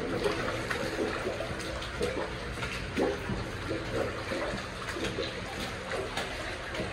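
Water running through an underground tunnel: a steady rushing noise, with short splashes every second or so.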